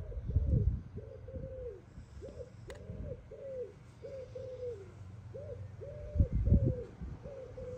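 A pigeon cooing over and over, each coo a short note that rises and falls, nearly two a second. Two low rumbling bumps, about half a second in and a little after six seconds, are louder than the coos.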